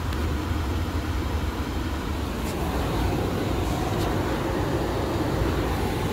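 2010 Holden Commodore's 3.0-litre V6 petrol engine idling steadily, heard from inside the cabin, with a couple of faint clicks.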